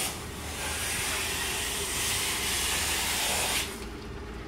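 A loud, steady hiss like escaping air, lasting about four seconds and cutting off suddenly, over a steady low engine hum.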